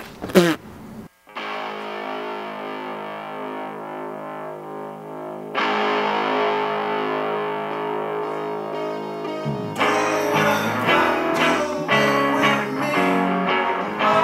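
Closing music on distorted electric guitar: long held notes that grow brighter about five seconds in, then a bass line and a rhythmic guitar part come in after about nine and a half seconds.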